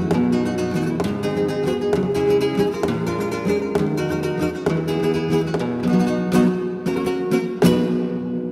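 Flamenco-style acoustic guitar music: quick plucked runs broken by sharp strums, with one hard strum near the end that rings out.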